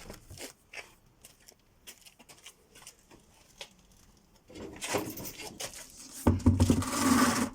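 A removed car wheel being moved on the ground and pushed under the sill as a safety stop while the jack sinks: a few light clicks, then scraping and rumbling for the last three seconds.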